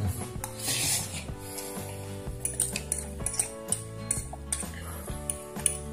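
Metal fork clinking and scraping against a plate of fried noodles, several sharp clinks, over background music.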